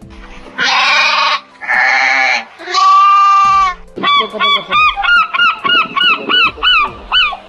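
Gulls calling: three long, harsh squawks, then a quick run of short rising-and-falling yelps, about four a second.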